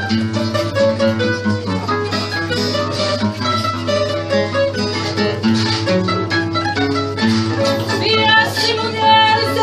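Instrumental fado passage of plucked guitars: the bright, mandolin-like Portuguese guitar playing runs of quick notes over the classical guitar's accompaniment, with a steady low hum beneath.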